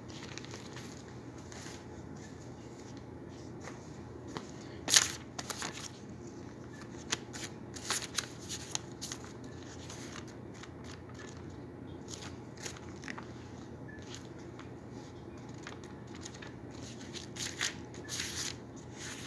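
Paper pages being leafed through: scattered rustles and crinkles, the loudest about five seconds in, with more clusters around eight seconds and near the end, over a low steady room hum.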